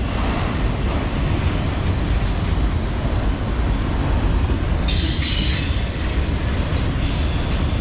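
Loaded autorack freight cars rolling slowly past, a steady low rumble of steel wheels on rail with a faint thin wheel squeal about three to five seconds in. A harsher high hiss joins suddenly about five seconds in.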